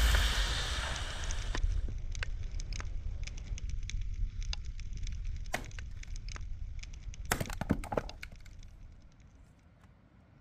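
Axe splitting firewood on a chopping block: a string of sharp wooden cracks and splintering snaps, the loudest cluster about seven to eight seconds in. A loud rushing noise fades away over the first second and a half.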